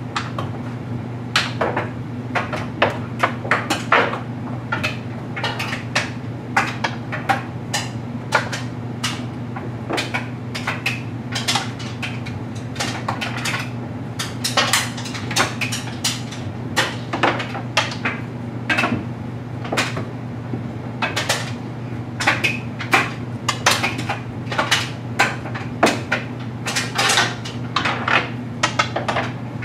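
LG Mega Capacity clothes dryer running with a steady hum as its drum tumbles a load of stuffed animals, with frequent irregular clicks and knocks as the load falls and strikes the drum and door.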